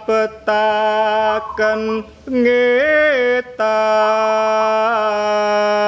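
A solo voice chanting a Javanese kidung (tembang) in long, drawn-out held notes, with brief breaths between phrases and a short rise and fall in pitch midway.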